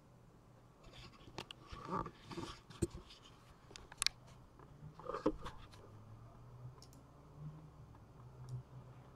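Handling noise as the camera is picked up and moved: a series of sharp clicks and taps with rustling through the first half or so, then a faint steady hum.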